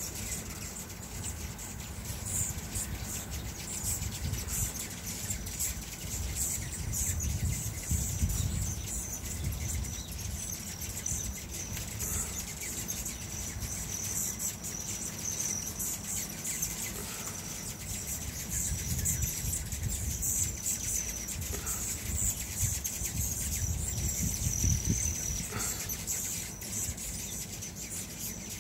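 A crowd of hummingbirds at a feeder, a constant high, squeaky chittering of many birds' calls over a low rumble.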